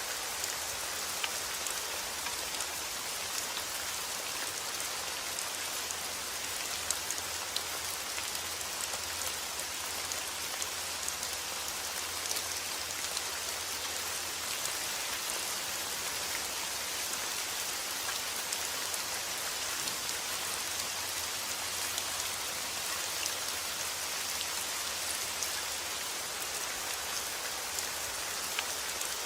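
Steady rain falling, an even hiss with scattered tiny drop ticks and no thunder.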